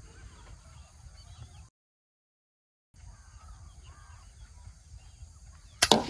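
Faint outdoor background with a few distant bird calls, broken by about a second of dead silence. Near the end comes one loud, sharp click.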